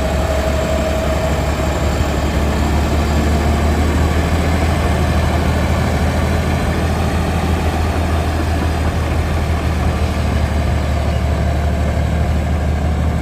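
XCMG TY230 bulldozer's diesel engine running steadily at an even speed, a constant low drone with no revving.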